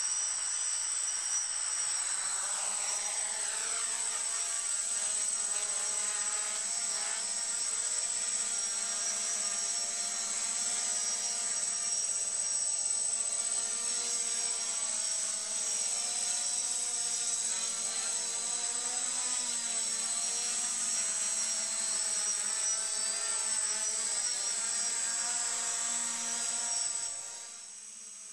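Quadcopter's four brushless motors (MT2213 1100 kV) and propellers buzzing in flight, the pitch shifting up and down as the throttle changes. The sound drops noticeably quieter near the end.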